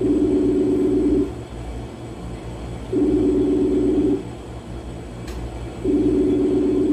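Facebook video-call ringing tone on the caller's side: a low two-note ring that sounds three times, each lasting about a second, roughly every three seconds, over a steady low hum.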